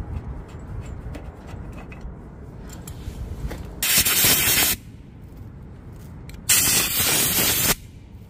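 Two loud, short blasts of pressurised spray hissing, each about a second long, roughly two and a half seconds apart, over a low background rumble.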